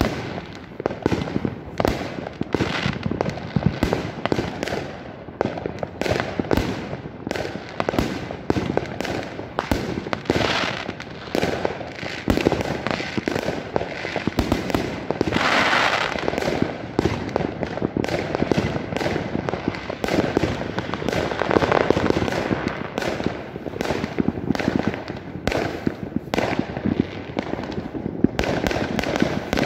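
Fireworks going off all around: a continuous barrage of overlapping bangs and crackles, several a second, with a hiss lasting about a second halfway through.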